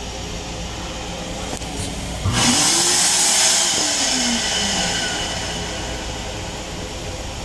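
Train restroom toilet flushing: a sudden loud rush of air about two seconds in, with a motor whine that rises and then falls, fading out over the next few seconds over the car's steady running rumble.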